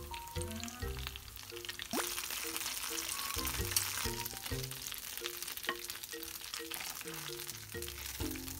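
Oil sizzling and crackling as skewered Korean-style hot dogs shallow-fry in a pan, the sizzle growing louder about two seconds in.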